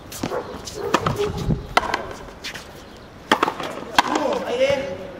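Frontenis rally: a rubber ball struck by strung racquets and smacking off the front wall, five sharp cracks spaced about a second apart with a gap in the middle.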